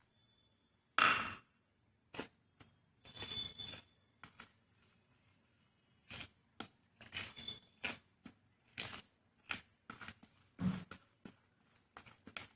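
A spoon stirring chocolate cake batter in a plastic bowl, with irregular scrapes and taps against the bowl's side. A single sharper knock comes about a second in.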